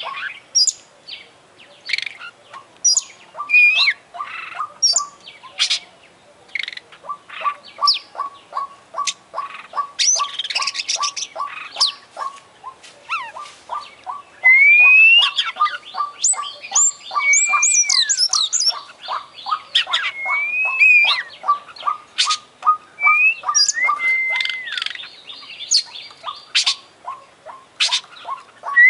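Oriental magpie-robin singing a varied song of sharp chips, trills and rising, bending whistles, busiest and loudest from about the middle on. Beneath it a short ticking note repeats steadily about three times a second.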